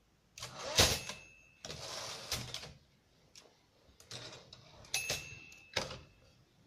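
Torpedo 18 typewriter mechanism: two sharp strikes, each leaving a bell-like ring that hangs for about a second, near the start and again about five seconds in. Between them comes a sliding, rasping stretch, and a knock follows near the end, typical of the carriage being worked.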